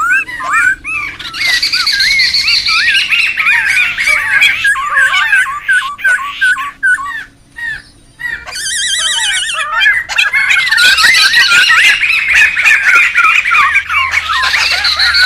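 A noisy group of poksay (laughingthrushes) calling over one another in loud, tumbling whistles and chatter. The calling drops off briefly about seven seconds in, then comes a fast, even trill before the full chorus picks up again.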